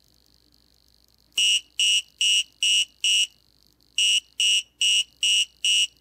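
Active buzzer on an Arduino breadboard beeping: two runs of five short, high-pitched beeps, about two a second, with a brief pause between the runs. This is the alarm sounded by pressing the joystick's select switch.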